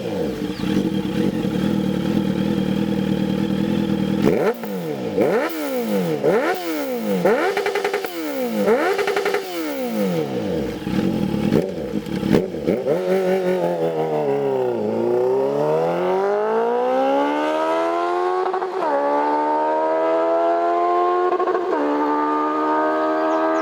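Honda CBR650F's inline-four engine with a GP3 aftermarket slip-on exhaust: idling steadily, then revved up and dropped back in a quick string of blips. It then accelerates with the pitch climbing steadily, broken twice by brief sharp dips as it shifts up a gear.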